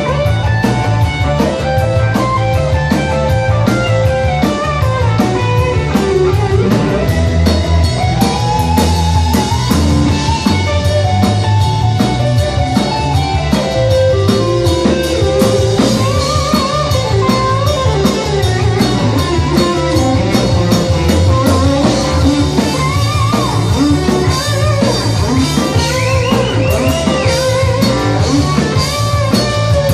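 Live rock band playing an instrumental section: an electric guitar solo with notes bent up and down, over a steady drum beat and bass.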